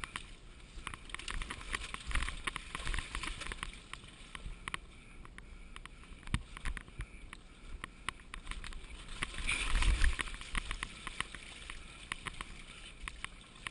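Enduro dirt bike ridden along a muddy forest trail: its engine runs under a dense rattle of clicks and knocks as the bike bounces over rough ground, with a louder surge about ten seconds in.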